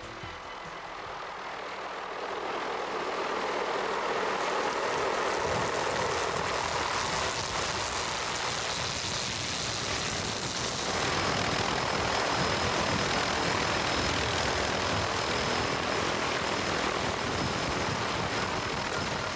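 Helicopter in flight, with engine and rotor noise that swells over the first few seconds, then holds steady and grows a little louder about eleven seconds in.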